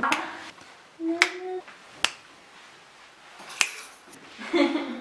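A few isolated sharp clicks, the loudest about a second in, with a short hummed voice sound at the same time and again near the end.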